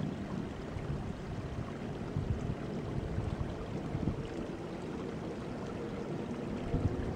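Wind rumbling and buffeting on the camera microphone, an uneven low rush over a steady hiss.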